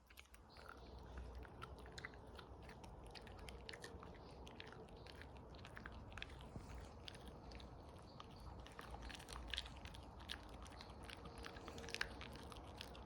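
A dog chewing and gnawing, faint, with small irregular crunching clicks throughout.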